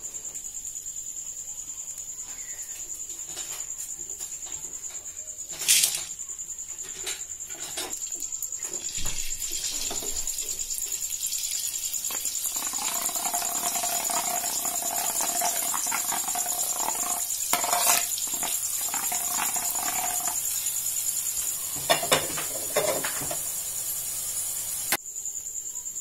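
Boondi batter frying in hot oil in a metal kadai: the sizzling grows louder from about a third of the way in as batter drips through the perforated ladle, with a few sharp metal clinks of the ladle against the pan. A steady high-pitched whine sits under it all.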